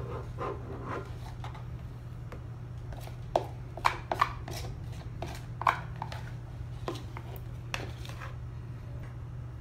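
A metal spoon scraping and tapping inside a plastic mixing bowl as crumbly dough is knocked out onto a wooden countertop. There are several sharp knocks between about three and six seconds in, over a steady low hum.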